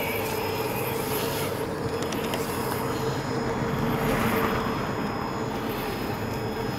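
Brushed electric motor and gearbox of a Traxxas TRX-4 Sport RC crawler whining steadily as it crawls slowly over rocky ground. The sound swells briefly about four seconds in.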